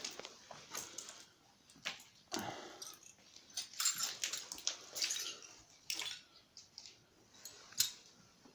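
Footsteps crunching and clinking over debris and broken glass, a run of irregular sharp clicks and scrapes.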